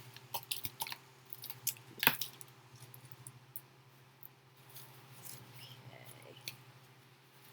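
A cardboard shipping box being opened and its paper packing handled: scattered clicks and crinkles, the loudest about two seconds in, then softer rustling.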